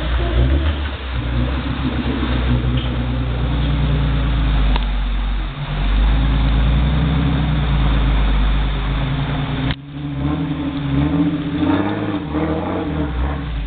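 Jeep Wrangler's engine running under load as it drives through a muddy ford, with water splashing against the wheels. The sound breaks off sharply about ten seconds in, then the engine runs on, its revs rising and falling.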